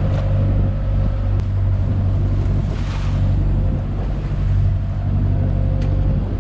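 Fishing boat's engine running steadily with a low, even hum, with wind and water noise over it.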